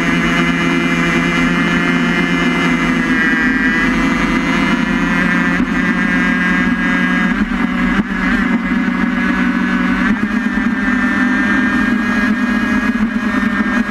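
Engine of a small racing vehicle running at a steady speed, heard onboard, with slight shifts in engine pitch about three, seven and ten seconds in.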